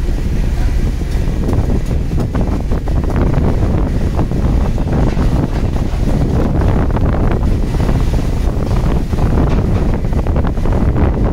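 Wind buffeting the microphone over a steady low rumble aboard a fishing boat, with scattered short knocks and clatter from the crew working the tuna on deck.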